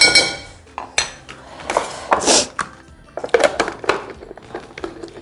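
A spoon scraping and clinking against a mixing bowl and a container while ground lentil falafel mixture is scooped across. It opens with a bright, ringing clink, and a run of irregular scrapes and knocks follows.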